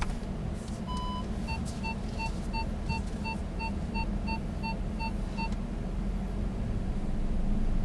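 Audi Q7's 3.0 TDI V6 diesel engine running at a low, steady rumble, heard from inside the cabin. About a second in the car sounds a single electronic tone, then a regular run of short beeps, about three a second, which stops about two-thirds of the way through.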